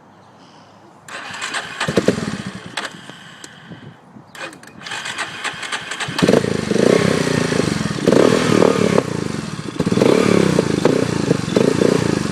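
A small ATV engine being cranked over and started: two spells of starting from about a second in, then it catches near the middle and runs loudly with uneven revving.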